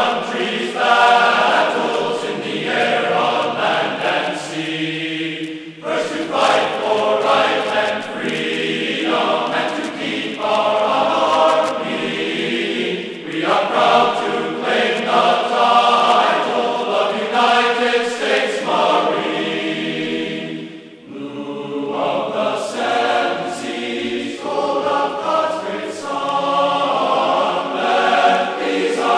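Background music: a choir singing in sustained phrases with short breaks between them.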